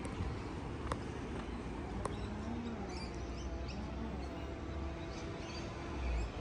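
Birds chirping in short, scattered calls over a steady low rumble of outdoor wind and distant traffic, with two sharp clicks about one and two seconds in.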